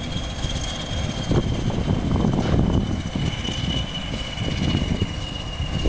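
English Electric Class 20 diesel locomotive D8188 running as it draws away, its engine's steady high whistle slowly falling in pitch over a low rumble.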